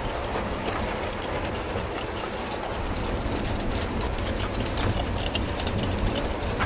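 Steady loud rumbling and rattling, with a rapid run of sharp clicks and knocks in the second half.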